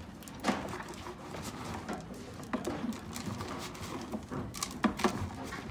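Horse eating grain from a plastic feed bucket: irregular crunchy chewing with a few sharp knocks.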